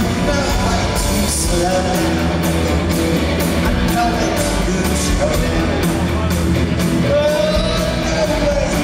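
Live rock band playing, with a man singing lead over bass, drums, keyboards and guitar.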